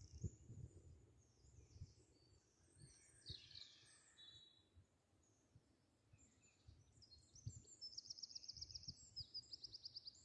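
Faint small songbirds calling and singing, with a quick, high, repeated trill near the end; a few soft low knocks underneath.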